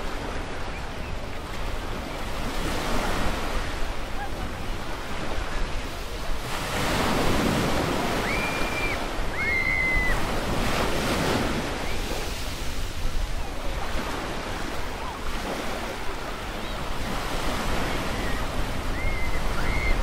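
Gentle waves washing onto a sandy shore, swelling and easing, with the fullest wash in the middle, and a light wind. A few short, high chirps come in the middle and again near the end.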